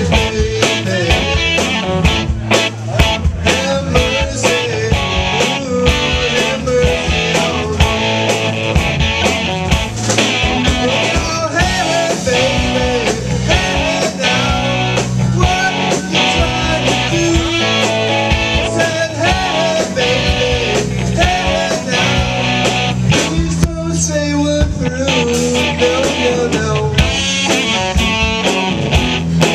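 Live blues-rock band playing: electric guitars over a drum kit and keyboard, with a brief drop in the cymbals and high end about three-quarters of the way through.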